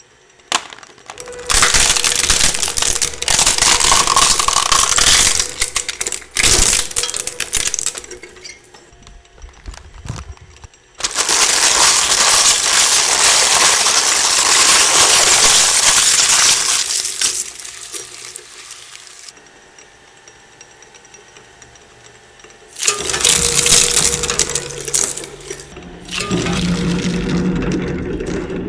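Industrial shredder crunching and popping bubble wrap in several loud bursts of crackling, the longest about five seconds; near the end a steady low machine hum joins the crackle.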